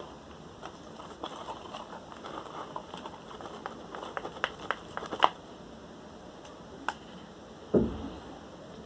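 Small handling sounds of slime-making: scattered light clicks and taps of a utensil against a container, a quick run of sharper clicks about four to five seconds in, and a dull thump near the end.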